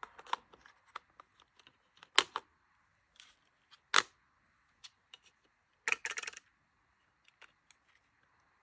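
Fujifilm Instax Mini instant camera being loaded with a film pack: sharp plastic clicks and knocks as the cartridge is seated, with a short clatter of clicks about six seconds in as the hinged back door is snapped shut.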